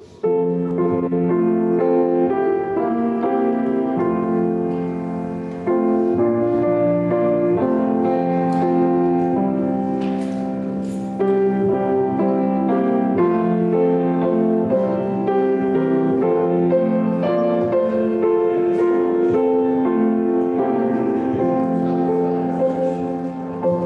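Closing church music: slow chords held on a keyboard instrument, changing every second or two.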